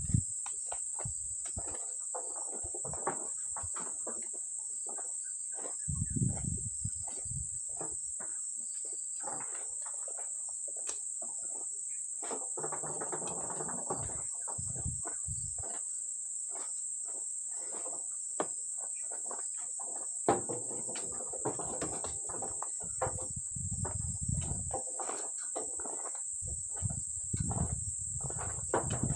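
Steady, high-pitched drone of a tropical insect chorus, with scattered small knocks and patches of low rumble in between.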